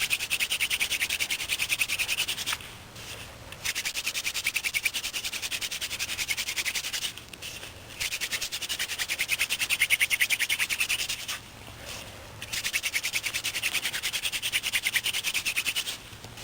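Hand-drill fire-making: a cattail spindle twirled between the palms grinds and squeaks in the notch of a willow hearth board, a fast even run of squeaky strokes. It comes in four runs of three to four seconds, with a pause of about a second between each as the hands go back to the top of the spindle.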